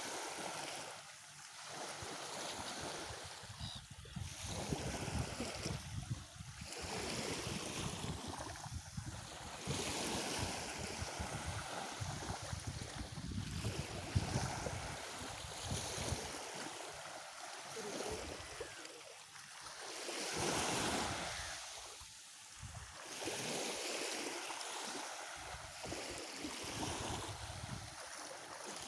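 Black Sea waves breaking and washing on the shore, the surf swelling and ebbing every few seconds, with a low rumble heavier in the first half.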